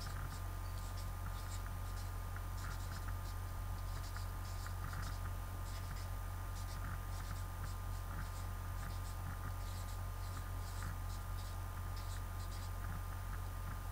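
Black marker pen scratching across paper in many short strokes as words are hand-written, over a steady low hum.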